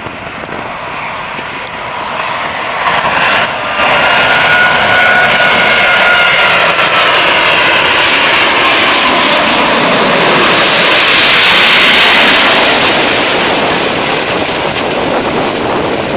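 Airbus A380's four Rolls-Royce Trent 900 turbofans passing low overhead on final approach. The engine whine and rushing jet noise grow steadily louder, with the whine falling in pitch as the aircraft passes. The noise is loudest about two-thirds of the way through, then fades slightly.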